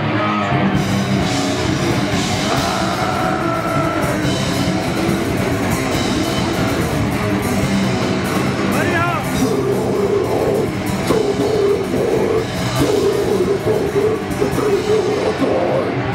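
Live heavy metal band playing loud, with electric guitars, bass and a drum kit.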